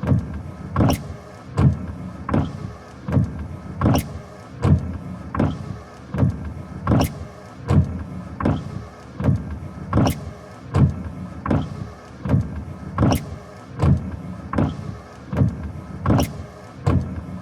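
A vehicle running with a steady low rumble and a regular knock about every three-quarters of a second.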